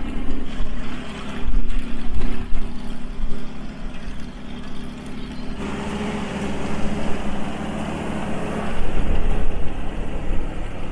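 Engines of vintage Harris Power Horse four-wheel-drive tractors running steadily. About five and a half seconds in, the sound changes abruptly to a closer, fuller engine note.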